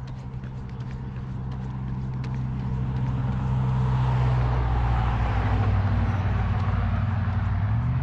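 A motor vehicle: a steady low engine hum with tyre or road noise, growing louder over the first few seconds, then holding steady.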